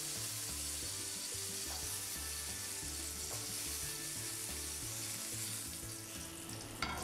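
Oil sizzling steadily in a frying pan as browned ground-meat kofta are lifted out with a spoon; the sizzle eases a little near the end, and a clink of utensil on dish comes just before the end.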